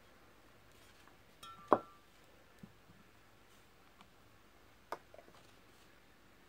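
Toiletry bottles and an aerosol deodorant can being moved about on a dresser top. There is a sharp clink with a short ring nearly two seconds in, a second knock about five seconds in, and a few faint taps between.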